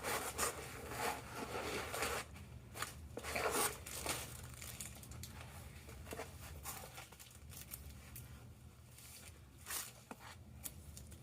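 Packaging being torn open and crinkled by hand to free a roll of vinyl. The rustling is busiest for the first four seconds or so, then thins to scattered rustles and clicks.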